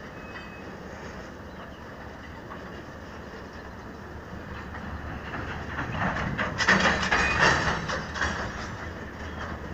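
Coal train wagons rolling past over a small rail bridge, a steady rumble of wheels on rail. About six seconds in it swells into a louder stretch of rapid clattering that lasts a couple of seconds, then eases back.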